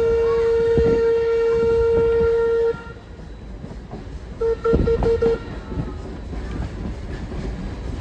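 A train whistle sounds one long steady blast that cuts off suddenly just under three seconds in, then about five short toots a second and a half later, over the rumble and clatter of the moving train.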